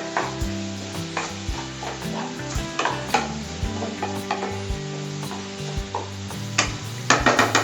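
Sliced onions and green chillies sizzling in hot oil in a kadai while being stirred, with short knocks and scrapes of the spatula against the pan.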